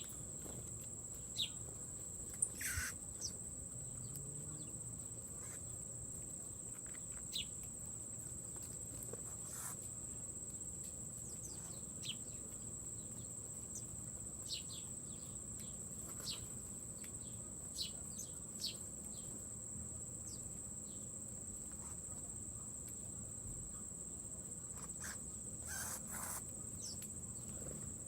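Steady, unbroken high-pitched drone of an insect chorus, with short high chirps scattered through it and a few sharp clicks, one about three seconds in, one near ten seconds and a pair near the end.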